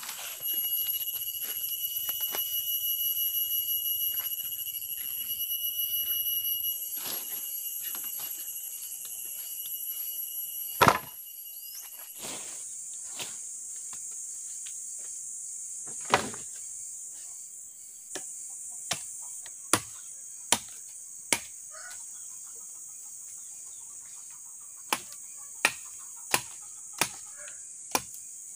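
Forest insects keep up a steady high-pitched chorus, while sharp knocks of wood sound now and then, the loudest two about a third and halfway in. Near the end comes a regular run of machete chops into a wooden stick, about one every 0.7 seconds.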